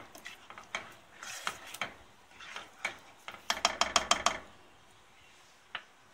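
A spoon stirring tomato sauce in a pan, tapping and scraping against the pan: scattered clicks, then a quick flurry of taps about three and a half seconds in, then a single tap near the end.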